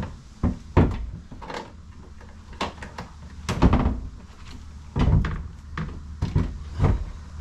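Heavy hammer blows on the crash-bent steel of a BMW 335i's door opening, about ten irregular strikes, knocking the metal out so a replacement door will fit.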